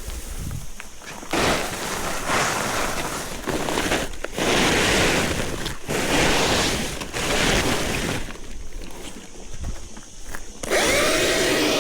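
Battery chainsaw cutting through Callistemon branches: the chain's rough cutting noise comes in stretches with brief breaks. Near the end the electric motor's whine returns, rising as the saw spins up free of the wood.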